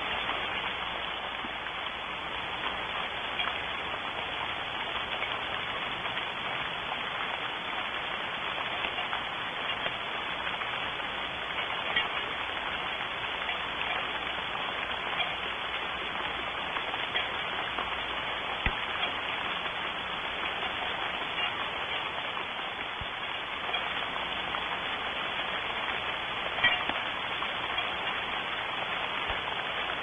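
Steady rain falling, a dense even patter with now and then a single louder drip.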